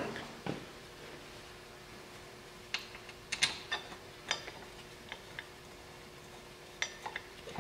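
Scattered light metallic clicks and clinks of hand tools and brake parts being handled, over a faint steady hum.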